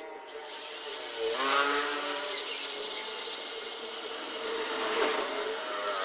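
Flexible-shaft rotary grinder with a burr porting the intake and exhaust ports of a Yamaha NMAX 155 aluminium cylinder head. It gives a steady whine with scraping, and its pitch dips about a second in. The ports are being enlarged to suit the 63 mm bore-up.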